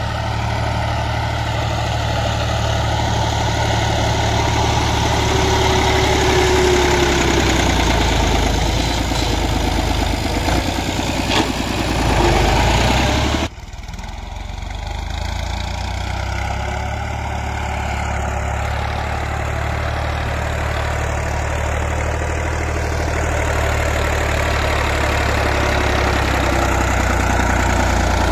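Fiat 480 tractor's three-cylinder diesel engine running steadily as its front blade pushes soil. About halfway through the sound breaks off suddenly, then the engine carries on a little quieter.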